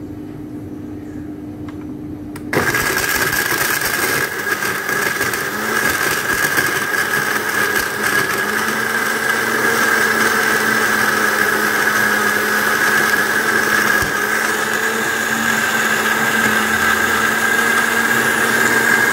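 Electric countertop blender switching on about two and a half seconds in and running steadily at full speed, grinding lemongrass, turmeric and spices with water into a wet paste.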